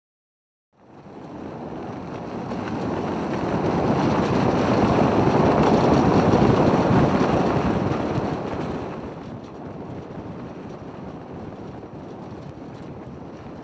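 Wind and road rush from a moving car, heard out of its open side window. It starts about a second in, swells to its loudest about halfway and eases off again.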